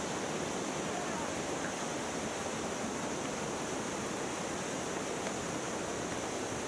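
Steady rushing of a rocky mountain river.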